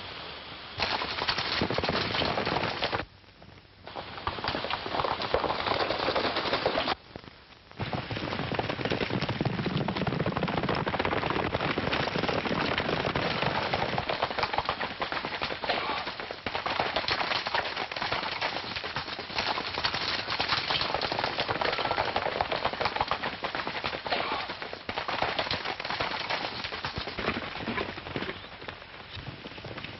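Film soundtrack of a chase: a rapid, dense clatter of galloping horses' hooves mixed with gunshots. It breaks off briefly twice in the first eight seconds.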